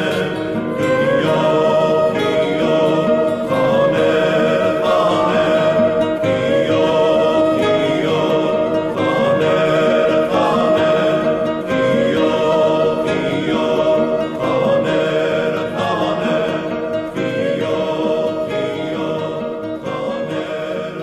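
Background music: a sung arrangement of an Armenian folk song, with singing voices over instruments.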